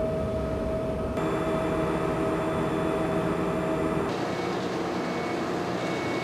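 Steady drone of ship engine-room machinery with a steady tone running over it. The tone stops about four seconds in, leaving the drone alone.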